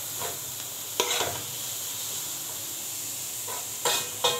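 Shrimp, onion and parsley sizzling steadily in a metal frying pan while a metal spoon stirs them, clinking against the pan about a second in and twice near the end; the last clink rings briefly.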